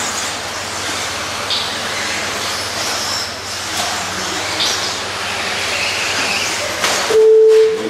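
Radio-controlled 2WD buggies racing on a dirt track: a steady mix of motor whine and tyre noise with short high whines as cars pass. A loud, steady electronic beep sounds for under a second about seven seconds in.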